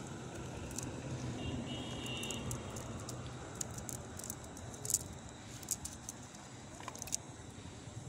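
Wet nylon fishing net being handled and picked through by hand on stone paving: soft rustling with scattered small clicks and ticks, over a steady low hum.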